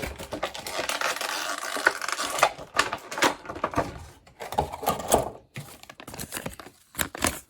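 Plastic toy packaging crinkling and being torn open, with scattered sharp clicks. The sound is densest for the first couple of seconds and turns to intermittent rustles and clicks after that.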